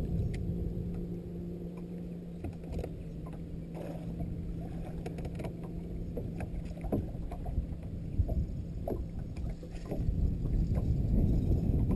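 Water and wind noise around a bass boat, with the steady hum of the bow-mounted electric trolling motor, which cuts off about ten seconds in; scattered light clicks run through it, and the low rumbling water and wind noise grows louder after the hum stops.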